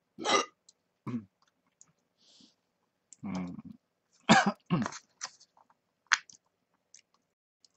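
A man eating at the table: several short voiced grunts or throat-clearing sounds with his mouth full, chewing, and a few small clicks of chopsticks against the bento tray near the end.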